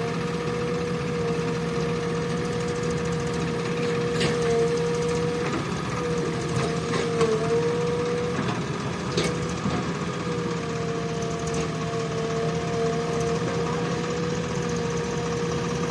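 JCB backhoe loader's diesel engine running steadily, with a steady tone over it and a few short knocks, about four and nine seconds in.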